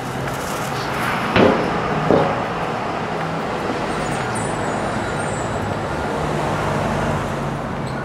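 Street traffic: a car engine running close by over steady road noise, swelling slightly near the end, with two sharp knocks about a second and a half and two seconds in.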